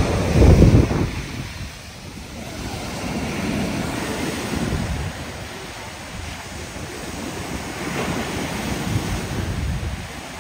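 Waves breaking and washing up on a beach, swelling and fading every few seconds, with wind buffeting the microphone; the loudest moment is a low wind rumble about half a second in.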